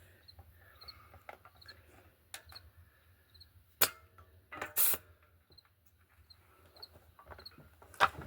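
A few sharp snaps or knocks against a quiet background: one about four seconds in, a slightly longer one a second later, and another near the end, with faint high chirps in between.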